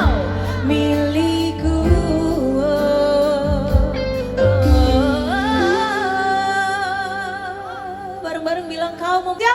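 Live music: a singer holds long, wavering notes over a band with heavy bass. The bass drops away about halfway through, leaving the voice and lighter accompaniment.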